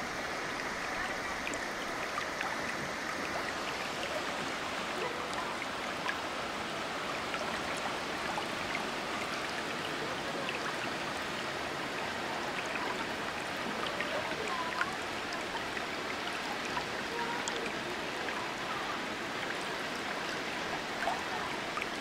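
Steady, even rush of water from a waterfall pouring into its river.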